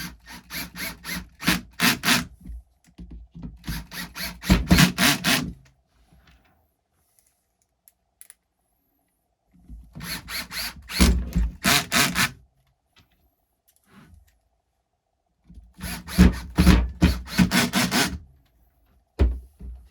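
Hand-tool work on a radio-controlled truck: rhythmic rubbing or scraping strokes, about three a second, in four bursts with short pauses between them.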